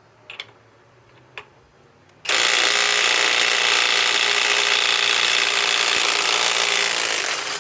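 Kobalt cordless right-angle impact wrench hammering in reverse for about five seconds, starting a couple of seconds in, as it works loose a bolt tightened by another impact wrench. A couple of light clicks come before it starts.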